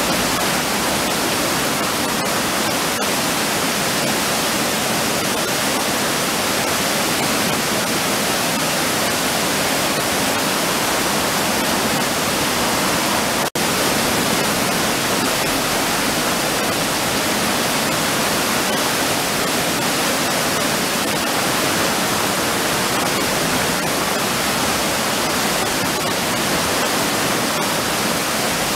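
Steady rushing of a swollen river pouring over a low stepped weir. The roar drops out for an instant about halfway through.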